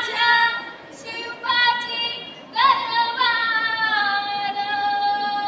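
Girls singing into a microphone in short phrases with brief breaks, the last phrase ending on a long held note.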